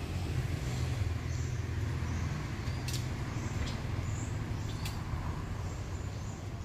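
Steady low background rumble outdoors, with a few faint, sharp high clicks or chirps about three and five seconds in.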